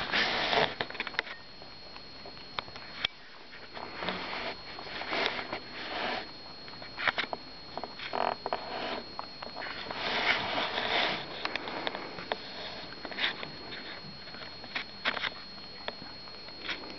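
A young rabbit eating dry food pellets close to the microphone: irregular crunching and chewing, with sniffing as its nose comes near.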